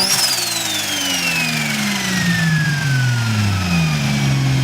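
Turbocharged straight-six engine revved: the revs peak at the start and fall back to a steady idle over about four seconds. The turbo's high whistle slides steadily down in pitch as it spools down.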